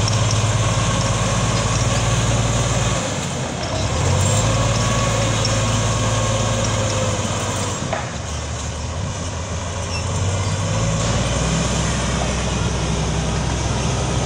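14H motor grader's diesel engine running steadily as the grader works, a continuous low drone that eases off briefly about three seconds in and again for a couple of seconds around the eight-second mark.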